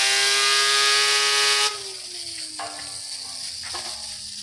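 Fidget spinner whining at high speed under a hissing jet of compressed air. About 1.7 s in, the air hiss stops suddenly and the spinner's whine falls steadily in pitch as it coasts down.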